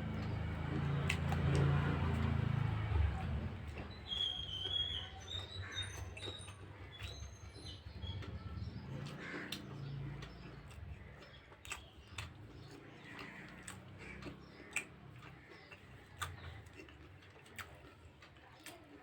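Close-up eating sounds: chewing and scattered clicks of fingers or utensils on a plate, loudest in the first few seconds. A bird chirps briefly about four seconds in.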